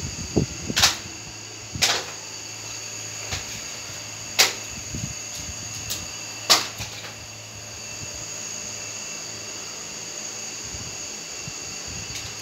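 A steady mechanical whir with a low hum and a few fixed high tones, like a running fan or motor, broken by four sharp clicks in the first seven seconds.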